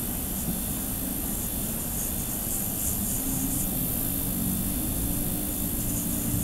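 Electric nail drill running with a small cone-shaped bit worked around the cuticle of a fingernail during drill cuticle care: a steady motor hum whose pitch wavers slightly, over a high hiss.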